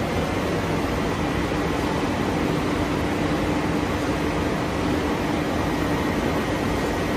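PVC coil mat production line machinery running: a steady mechanical hum and whir with a faint held tone.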